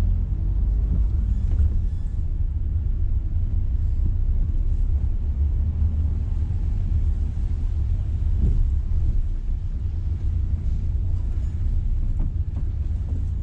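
Steady low rumble of a Renault car's engine and road noise heard from inside the cabin while it is being driven.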